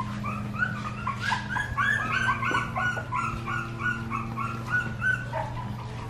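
Three-week-old puppies whimpering: a quick run of short, high squeaks, several a second, that dies away near the end, over a steady low hum.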